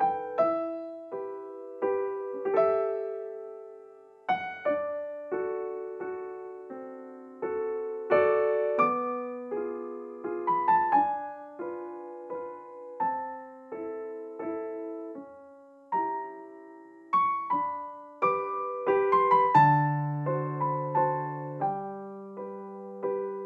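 Background music: slow solo piano, single notes and chords struck and left to ring out, with lower bass notes joining about twenty seconds in.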